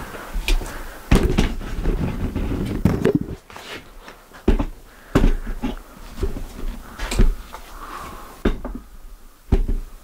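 Hand-work handling noises: a dense scraping and rustling stretch from about one to three seconds in, then a handful of separate sharp knocks and clatters.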